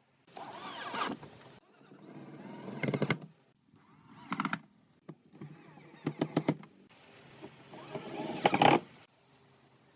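Several short runs of a small electric motor, each about a second long, with a cluster of sharp clicks in the middle; the last and loudest run is near the end.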